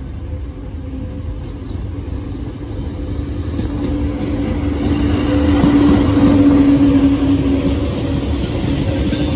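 Pair of VL80S AC electric freight locomotives hauling a freight train, approaching and passing: a low rumble with a steady hum that grows louder and peaks about six to seven seconds in as the locomotives go by.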